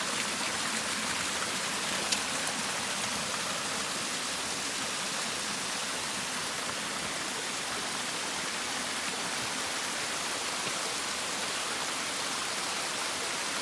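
Water running steadily, like a small stream or spring flowing over rocks, an even rushing hiss with one brief click about two seconds in.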